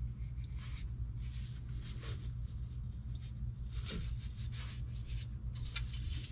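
Faint rubbing, scraping and small clicks of a gloved hand working at a truck's oil filter, over a steady low hum.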